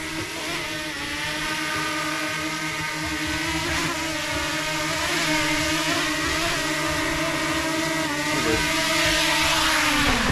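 Small quadcopter camera drone's propellers whining steadily in flight, with a slight waver in pitch; the pitch drops near the end.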